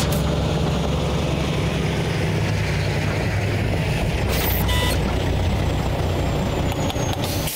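Old Chevrolet pickup's engine running steadily through its upright exhaust stacks, a steady low rumble.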